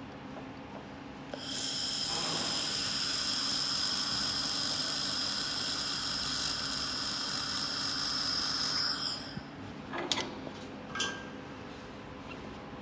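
A 2000 W handheld laser welder with wire feed welding an aluminium block, a steady hiss with a high whine and spatter. It starts about a second and a half in and cuts off about nine seconds in. Two short knocks follow.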